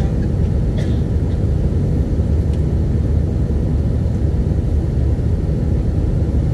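Steady low roar in the cabin of an Airbus A320-232 climbing after takeoff: its IAE V2500 turbofans at climb power and the rush of air over the fuselage.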